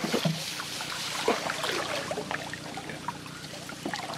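Water splashing and trickling around a canoe, strongest in the first second, with scattered light knocks.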